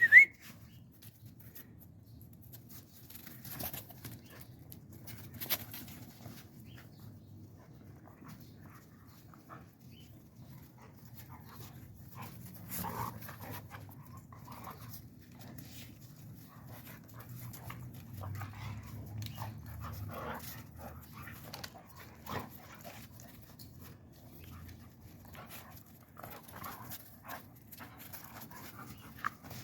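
Dogs panting and moving about, with a short, loud, rising squeal right at the start.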